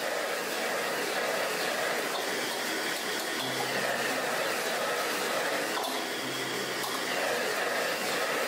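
Stir-frying in a carbon-steel wok over a commercial wok burner: a steady hiss of food frying in hot oil together with the burner's flame, as the fish and vegetables are tossed in the pan.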